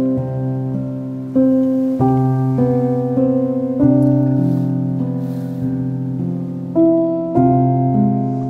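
Background piano music: slow chords struck roughly once a second, each ringing on until the next.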